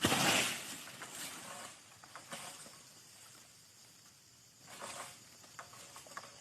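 Irregular rustling and scuffing in leaves, a few short bursts with quiet between, the loudest about the first half-second.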